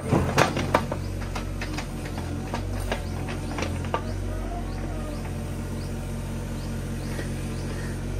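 Hitachi mini excavator's diesel engine running steadily as the bucket digs in a pit, with a few sharp knocks in the first second and lighter clicks and scrapes after.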